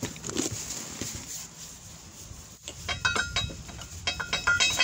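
Metal clinks and rattles of a socket and ratchet working a bearing bolt on a van's front hub, in two short clusters of ringing clicks, about three seconds in and again near the end.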